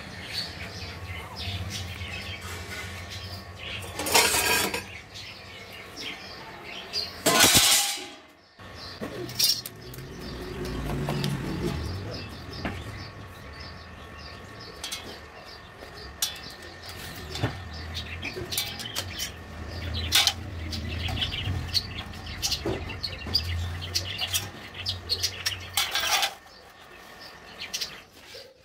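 Metal tools and a steel plate being handled: scattered clicks, knocks and scrapes, with a few louder clattering bursts, over a low steady hum.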